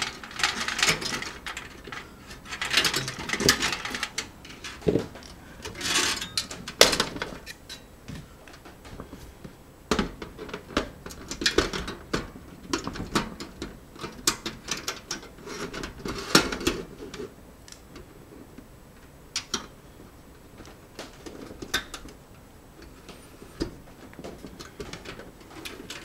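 Metal clicks, scrapes and rattles of hands working inside an Ultra XBlaster metal PC tower case: working loose a small metal drive-bay knock-out piece and fitting a DVD drive into its bay. The scraping is dense for the first several seconds, then thins to scattered clicks and knocks.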